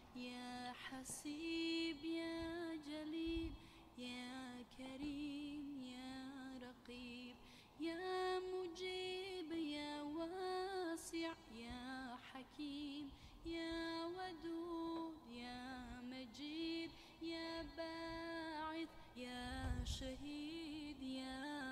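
Background music: a woman singing a slow melody with long held notes and ornamented, wavering runs, in phrases separated by short pauses.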